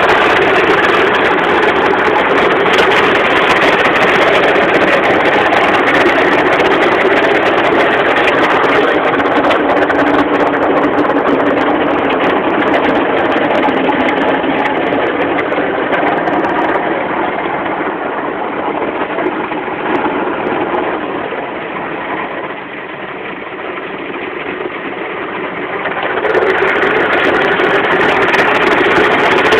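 Automatic car wash heard from inside the car: a steady rush of water spray and cloth brushes sweeping over the windshield, with the wash machinery running. It eases off for a few seconds about three-quarters through, then swells again.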